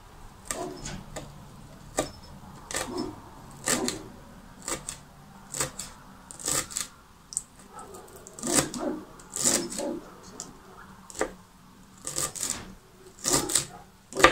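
Kitchen knife finely chopping fresh parsley and dill on a plastic cutting board: irregular sharp knocks, about one or two a second.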